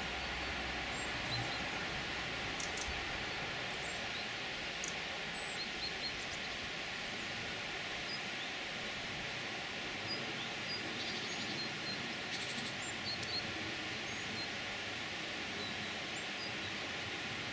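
Small birds giving short, high chirps here and there over a steady background hiss.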